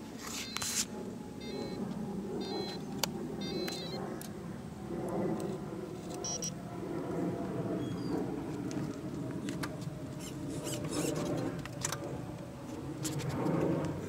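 Pride Jazzy powerchair's electric drive motors whirring as the empty chair is driven by radio remote control, the hum rising and falling as it moves. A few short electronic beeps sound about two to four seconds in.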